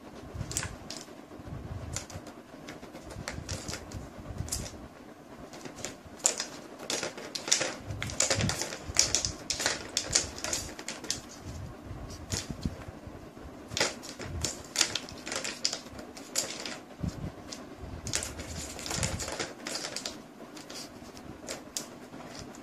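Plastic balls rattling and rolling in the tracks of a cat's tower-of-tracks toy as kittens bat at them: irregular runs of clicks and clatters, busiest in the middle and again later on.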